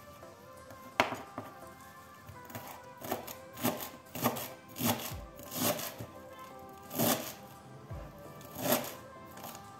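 Kitchen knife chopping fresh coriander on a cutting board. There is one sharp knock about a second in, then from about three seconds in a steady run of cuts, roughly one and a half a second.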